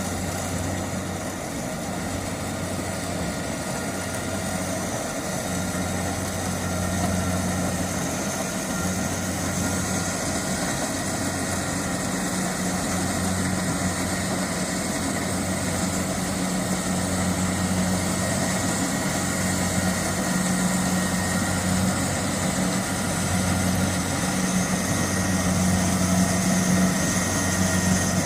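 Kubota rice combine harvester's engine running steadily with a low, even hum, growing slightly louder toward the end.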